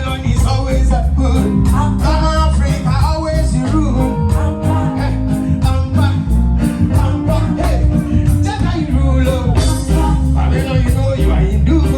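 Reggae music with a sung vocal over heavy bass and a steady, evenly spaced beat.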